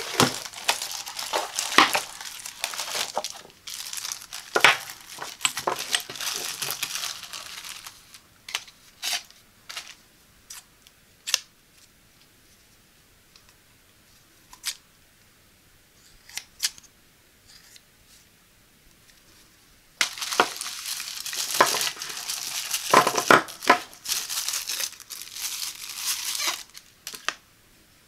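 Cardboard box and plastic packaging crinkling, rustling and tearing as a boxed knife set is unpacked by hand, with sharp little clicks mixed in. A quiet stretch in the middle holds only scattered clicks, and the plastic crinkling starts up again about twenty seconds in.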